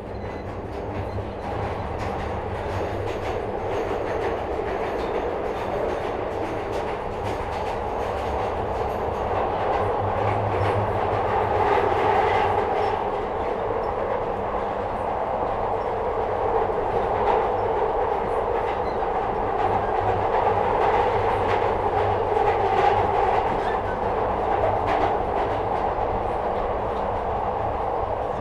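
Glasgow Subway 2nd Gen Metro-Cammell train heard from inside the car, running through the tunnel: a steady rumble of wheels on rail with scattered clicks. It grows louder over the first few seconds, then holds level.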